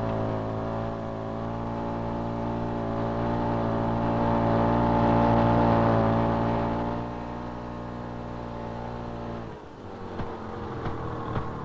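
A motor vehicle's engine running at a steady pitch. It grows louder to a peak midway, eases off, then cuts off sharply near the end.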